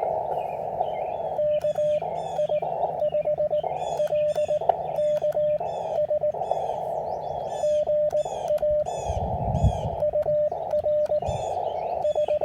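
Elecraft KX3 transceiver audio: a steady Morse code (CW) tone keyed in dots and dashes over a band of receiver hiss, with the hiss dipping each time the tone sounds. Small birds chirp over it throughout, and a low thump comes about nine seconds in.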